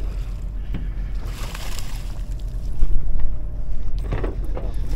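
Steady low drone of a party boat's engine under wind noise, with water splashing as a fluke is reeled to the surface and swung out of the water, loudest about three seconds in.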